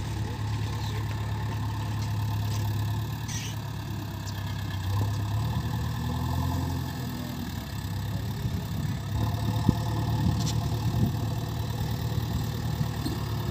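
JCB 3DX backhoe loader's diesel engine running steadily as the machine drives over rough grass, with a slight change in engine note partway through. A few short clicks or knocks, the sharpest about three-quarters of the way in.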